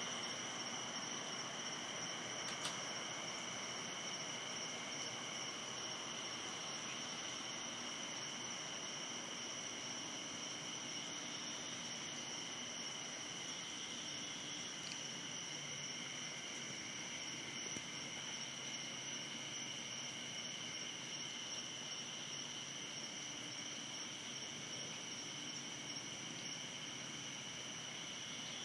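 Night insects trilling steadily at two high pitches, with one faint click a few seconds in.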